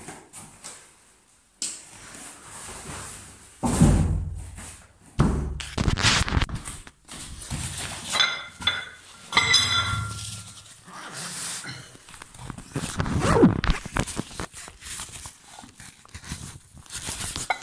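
Handling noise from the recording camera being picked up and moved: a series of heavy thumps and bumps with rustling.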